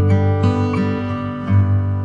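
Background music: an acoustic guitar strumming chords, with a new chord struck about every second.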